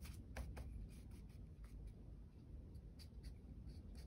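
Faint scrapes and a few light taps of a paintbrush being worked in a tub of black gesso, loading the brush.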